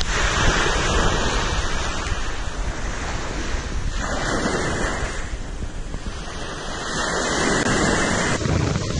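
Surf breaking and washing up a sandy beach, a steady rushing with slow swells, with wind buffeting the microphone.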